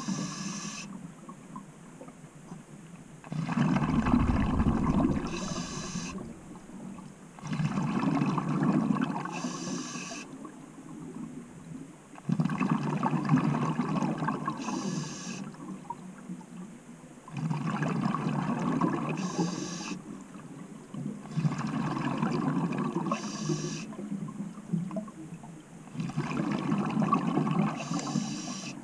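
Scuba diver breathing through a regulator underwater: a gurgling rush of exhaled bubbles about every four to five seconds, six times, each breath also bringing a short high hiss from the regulator.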